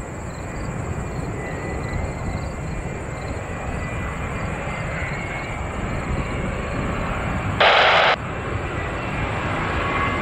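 Jet engines of a Boeing 787-9 airliner on approach, a steady rumble with hiss that slowly grows louder as it nears. A loud half-second burst of hiss cuts in about eight seconds in.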